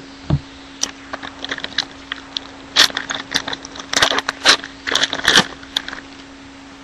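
Cards and foil pack wrappers being handled as trading card packs are ripped open and the cards flipped through: a run of quick clicks, snaps and crinkles, with a steady low hum underneath.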